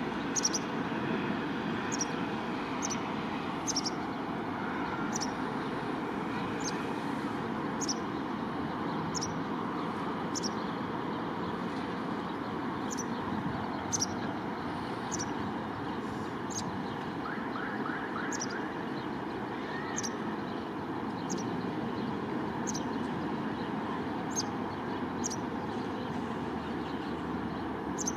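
Steady hum of distant city traffic. Over it, a small bird gives short high chirps, repeating irregularly about once a second.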